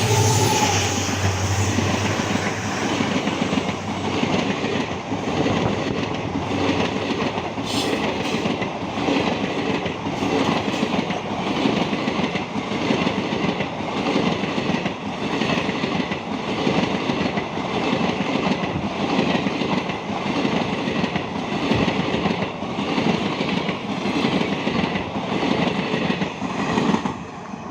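Indian Railways train coaches running past at speed, the wheels clattering in a regular rhythm about once a second, until the sound falls away near the end as the last coach goes by.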